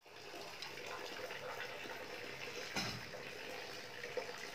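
Water splashing and sloshing in a small plastic basin as a toddler plays in it, with one louder splash just before the three-second mark.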